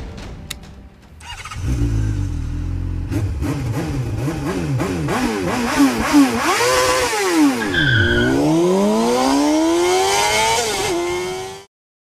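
Kawasaki Ninja ZX-25R's 249 cc inline-four engine revving. It comes in about a second and a half in with a low rumble, then revs up and down in quick blips, then in longer, higher climbs. It cuts off abruptly near the end.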